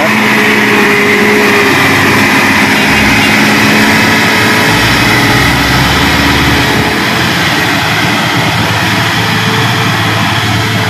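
Diesel engine of a Hino FM 280 JD (Hino 500) dump truck pulling slowly up a steep dirt climb as it passes close by, a steady heavy engine note that eases off a little in the second half as the truck moves away.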